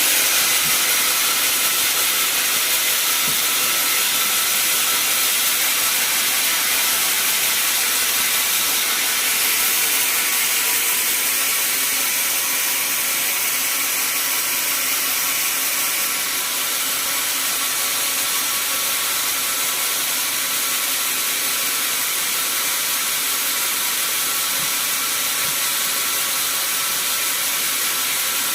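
Sawmill saw running steadily: a loud, continuous hissing noise with steady tones running through it.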